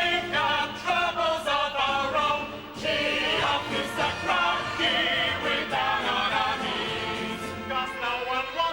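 A vocal group singing together in chorus.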